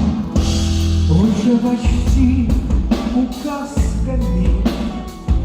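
Pop song accompaniment with drum kit and bass, and a melody line weaving over it from about a second in.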